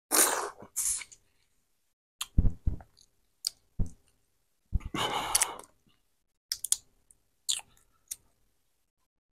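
Close-up mouth sounds of eating a Cajun butter-sauced tiger prawn: wet sucking as sauce is licked off the fingers at the start, then chewing with moist clicks and lip smacks in short separate bursts.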